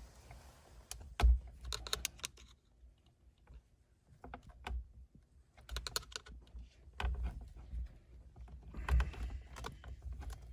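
Hands working on a steering-wheel airbag and its plastic wiring connectors: scattered light clicks, taps and rattles of plastic and small parts, coming in several short clusters with quiet gaps between.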